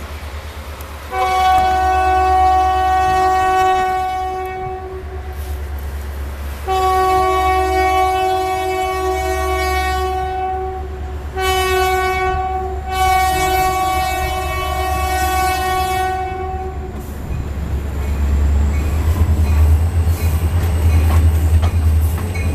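Diesel freight locomotive's multi-note air horn sounding the grade-crossing signal: long, long, short, long. Under it runs the low rumble of the locomotives' engines, which grows louder in the last few seconds.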